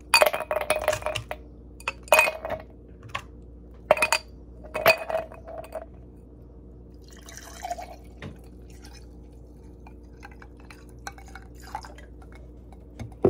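Glassware and dishes being handled: a series of sharp clinks that ring briefly in the first six seconds, then a short soft rush like liquid pouring and a few light taps, over a steady low hum.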